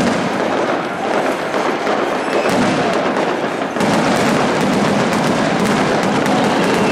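Fireworks display going off in rapid, continuous crackling bangs, growing louder and denser about four seconds in.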